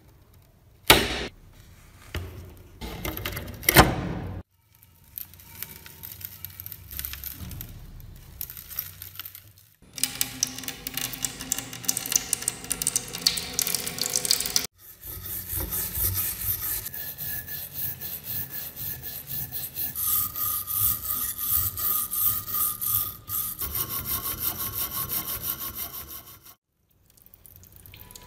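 Hand tools rasping and rubbing on the steel parts of a rusted TT-30 pistol: dense repeated strokes in several short takes joined by abrupt cuts. Two sharp knocks come in the first four seconds.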